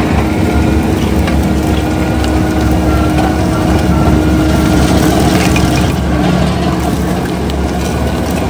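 Bobcat skid steer's diesel engine running under heavy load while its hydraulic Coneteks 2.13M ground-milling stump grinder churns through cut-down trees, stumps and soft soil. A steady whine runs over the rumble and fades out about six seconds in.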